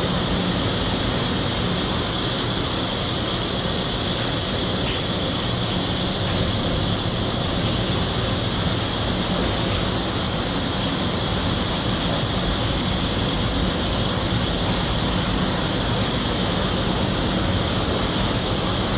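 Steady hiss with a low hum beneath it, from distillery equipment running.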